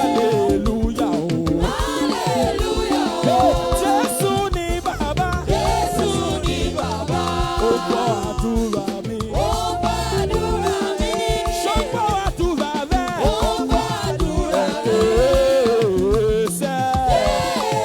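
Upbeat live praise music from a church band, with voices singing over a steady dance beat.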